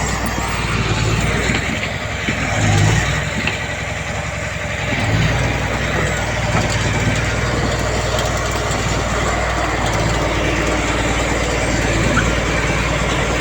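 Heavy diesel earthmoving machinery running steadily, with a brief swell in engine noise about three seconds in.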